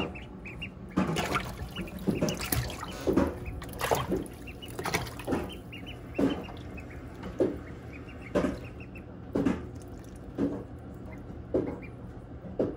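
Ducklings paddling and splashing in a plastic tub of shallow water, with a splash about every second and many short, high peeps between them.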